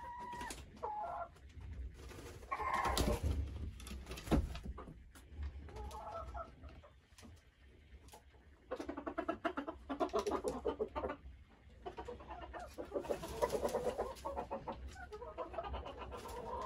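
Icelandic chickens clucking and calling, with long runs of rapid clucking about nine seconds in and again around thirteen seconds. There is a single sharp knock about four seconds in.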